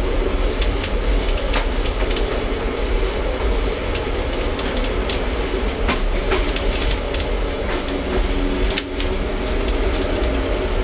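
Tram running along the rails with a steady rumble and hum, irregular clicks and knocks from rail joints and switches, and a few brief high-pitched wheel squeals.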